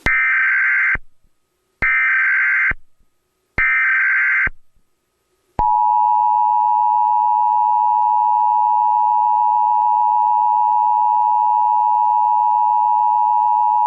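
Emergency Alert System tones: three short, harsh data bursts (the SAME header), each about a second long, then the steady two-tone attention signal held for about eight seconds. It is the alarm that opens a national test of the Emergency Alert System.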